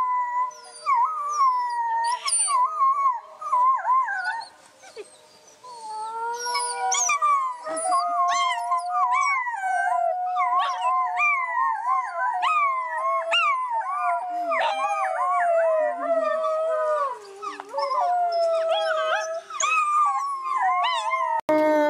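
A litter of wolf pups howling together, several high voices overlapping and wavering up and down in quick glides. The chorus dips briefly a few seconds in, then swells fuller and keeps going.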